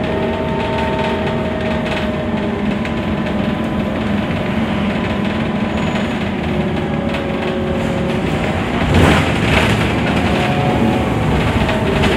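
Cabin noise inside a moving Scania articulated city bus: steady engine and road noise with a whine that drifts in pitch. About nine seconds in there are two louder knocks in quick succession, like the bus jolting over a bump.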